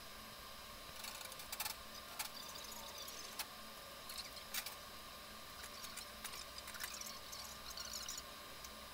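Faint scattered clicks and brief scratchy rustles of small objects being handled, over a steady faint hum.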